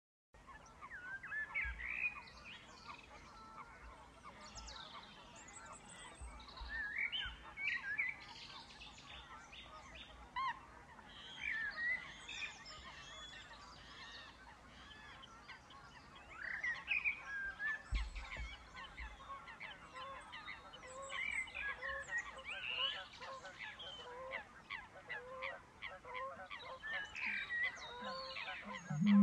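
Wetland birds calling and singing over one another at dusk, with a steady series of low repeated notes in the second half. Right at the end a deep, loud low note begins, the start of a male Eurasian bittern's boom.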